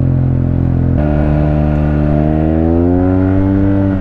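Yamaha maxi-scooter engine pulling under acceleration. Its note climbs steadily in pitch for a couple of seconds, then drops near the end as the throttle comes off.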